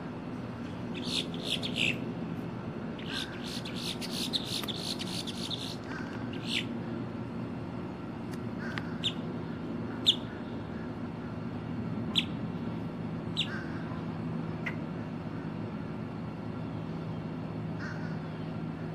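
Female boat-tailed grackle singing: a burst of harsh notes about a second in, a fast rattling chatter from about three to six seconds in, then single sharp notes every second or two.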